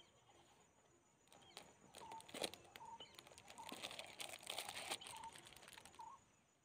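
Faint crinkling and rustling of a phone cover in its plastic wrap being slid out of a cardboard box, building from about a second in and easing off near the end. Short bird chirps sound faintly through it.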